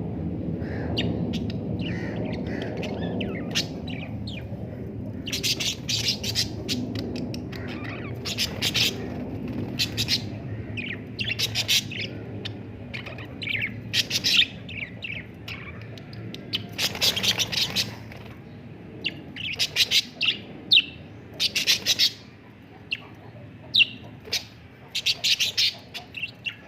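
Small birds chirping, with harsh, scratchy squawks in repeated short bursts from about five seconds in, as when birds squabble. A low background rumble fades away over the first several seconds.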